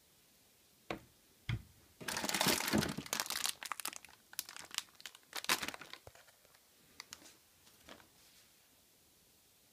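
Clear plastic packaging bag crinkling and rustling as it is handled, densest for a couple of seconds and then thinning to scattered crackles. Two sharp knocks come just before it, about a second in.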